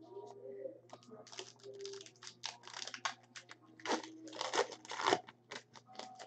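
Crinkling and tearing of a trading-card pack wrapper as it is ripped open and handled, in quick, irregular rustles that are loudest about four to five seconds in.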